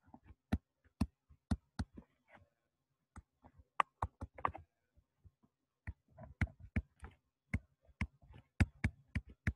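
Stylus clicking and tapping on a tablet surface during handwriting: sharp, irregular clicks several times a second, broken by a couple of short pauses.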